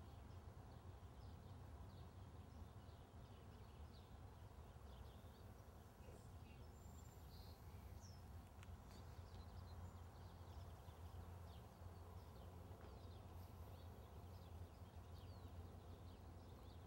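Near silence: faint outdoor background with a low steady hum and scattered faint bird chirps.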